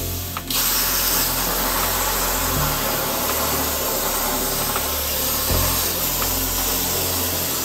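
Plasma cutter arc cutting steel plate on a Langmuir CNC plasma table: a loud, steady hiss that starts about half a second in and carries on without a break.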